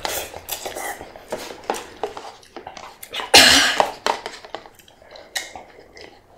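Eating at the table: cutlery clicking against bowls amid slurping and mouth noises from a meal of noodles and soup. One loud, sharp burst of breath about three and a half seconds in stands out above the rest.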